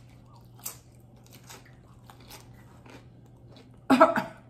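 Nacho tortilla chips being bitten and chewed close to the microphone: a string of short, sharp crunches. A brief voice sounds about four seconds in.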